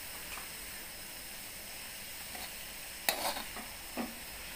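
Chopped vegetables and chicken sizzling in hot oil in a wok while being stir-fried with a spoon, which knocks and scrapes against the wok about three seconds in and again near the end.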